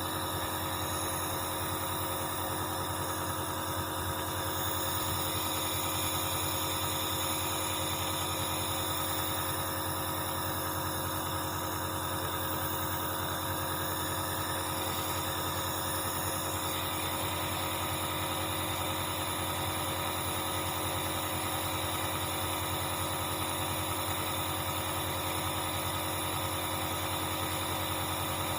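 Compressor nebulizer's electric compressor running with a steady hum that holds several pitches at once.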